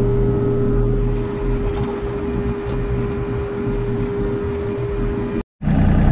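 Hitachi mini excavator's diesel engine running as the machine drives along, with a steady whine held over the engine note. Near the end the sound drops out briefly and returns as a heavier, lower engine rumble.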